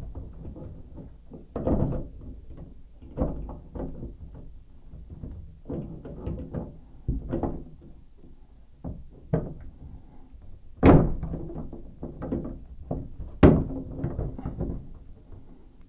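Metal wrench clunking and knocking against a shower valve's brass fittings as it is worked on a tight nut, in irregular knocks with two sharp, louder ones in the second half.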